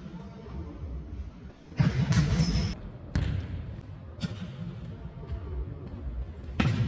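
Jokgu ball being kicked and bouncing on a wooden gym floor, with sharp impacts about two, three and four seconds in, echoing in a large hall. Players' voices can be heard faintly.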